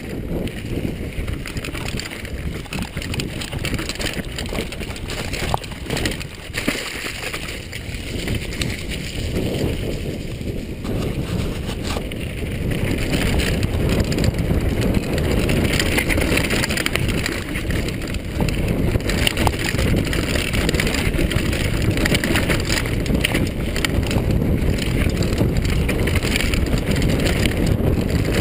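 Wind buffeting the microphone and a downhill mountain bike's tyres rolling over a dirt trail, with scattered knocks and rattles from the bike over bumps. It grows louder about halfway through.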